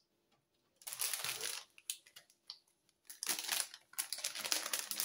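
Clear plastic packaging crinkling as a pack of plastic bag clips is handled: a short burst about a second in, then steadier crinkling from about three seconds on.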